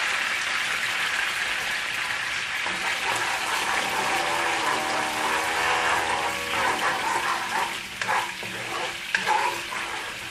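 Hot caramelized sugar sizzling in a stainless-steel wok just after soy sauce and fish sauce have been added, stirred with a wooden spatula. A steady hiss, with a few short scraping knocks of the spatula near the end.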